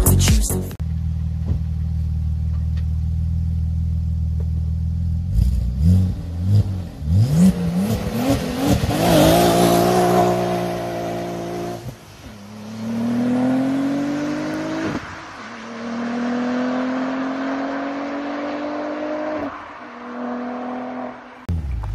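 Audi RS4 B5's twin-turbo V6 running steadily, blipped a few times, then accelerating hard away. The pitch climbs in each gear and drops at three upshifts, a few seconds apart.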